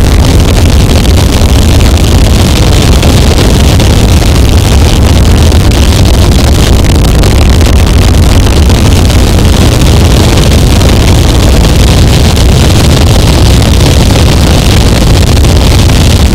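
Harsh noise wall: a dense, unchanging wall of distorted, crunchy electronic noise at full loudness, with a heavy low rumble under a hissing top and no rhythm or pitch.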